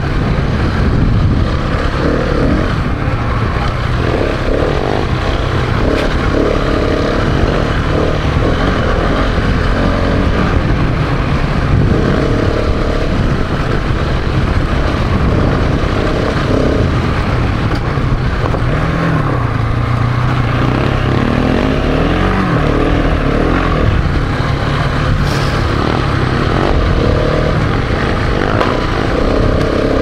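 Single-cylinder dual-sport motorcycle engine running under way, its note rising and falling with the throttle, briefly revving up around nineteen and twenty-two seconds in, over a steady rushing noise.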